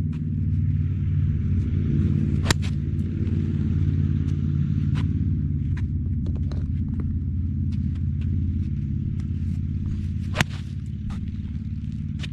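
Two sharp golf club strikes on the ball, about two and a half seconds in and again near the end, with fainter clicks of other strikes between, over a steady low rumble.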